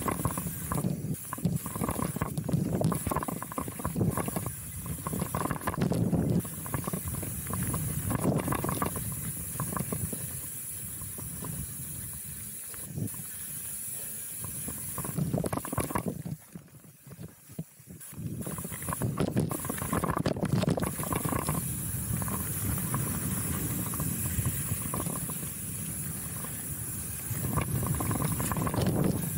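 Chromag Rootdown steel hardtail mountain bike ridden down a dirt singletrack: tyres rolling and skittering over the trail, with knocks and rattles from the bike and wind rushing on the microphone. It goes briefly much quieter a little past halfway, then picks up again.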